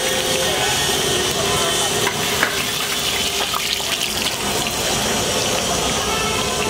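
Mirchi bajjis, batter-coated green chillies, sizzling steadily in a large kadai of hot oil, with a few short clicks.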